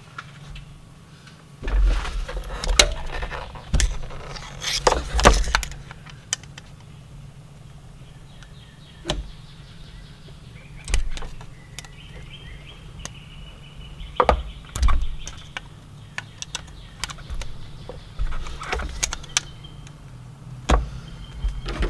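Irregular clicks, taps and scrapes of a small metal tool working at the old O-ring on a removed Honda Civic distributor, prying it from its groove without an O-ring pick. A faint steady low hum runs underneath.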